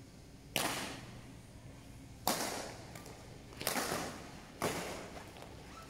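Badminton rackets striking a shuttlecock during a rally: four sharp hits about a second or so apart, each echoing briefly in a large hall.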